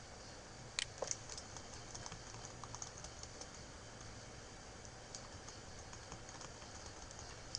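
Computer keyboard keys clicking: a few sharp key clicks about a second in, then scattered light taps.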